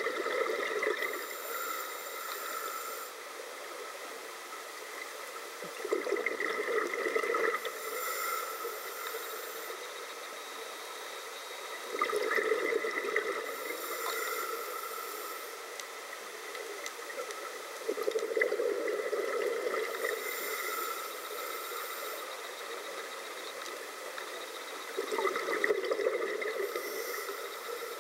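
Scuba regulator breathing underwater: about every six seconds a diver's exhaled bubbles gurgle out in a loud burst, alternating with the high hiss of the regulator on the inhale, five breaths in all.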